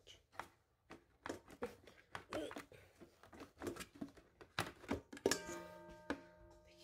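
Clear plastic splash guard knocking and clattering against a stainless steel stand-mixer bowl as it is fitted on. About five seconds in, a sharper knock sets the metal bowl ringing with a steady, several-pitched tone that lasts about a second.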